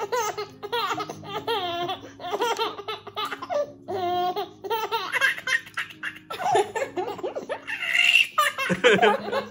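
A baby laughing hard, in repeated runs of short belly-laugh bursts, over background music.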